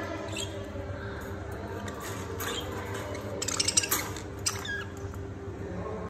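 Budgerigars in a cage chirping and chattering in short, squeaky calls, with a quick run of sharp clicking chirps, the loudest part, a little past the middle. A steady low hum runs underneath.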